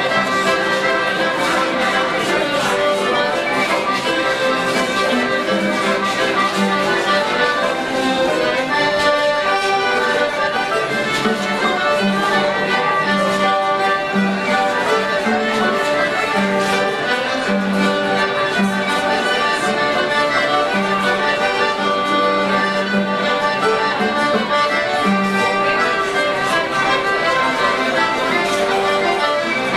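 Live folk dance music on fiddle and accordion: a steady traditional dance tune with a regular pulsing beat.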